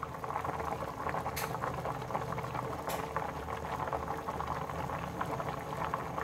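Rice boiling hard in a steel pot of plenty of water, a steady dense bubbling with two sharper pops in the first few seconds. The rice is cooked through and still at a rolling boil, ready to be drained.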